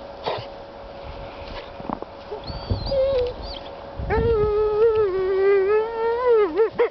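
Dog whining for food it cannot reach: faint whimpers in the first half, then one long drawn-out whine of nearly three seconds that breaks into quick wavering yelps at the end.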